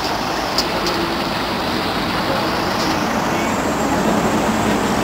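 Heavy vehicle engines, the fire engines at the scene, idling under steady road traffic noise, an even rumble and hiss. A short click about half a second in.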